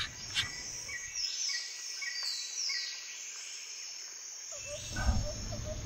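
Outdoor backyard ambience: short repeated bird chirps and a buzzy insect call that rises and falls in pitch, with low background noise coming back in near the end.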